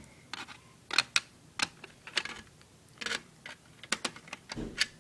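Irregular sharp clicks and clacks of tools and small parts being handled against a ThinkPad laptop's case during disassembly, with a duller knock near the end.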